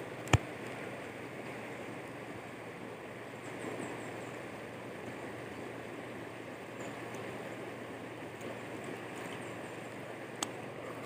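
Steady rush of a shallow river running over rocks, with a sharp click just after the start and a fainter click near the end.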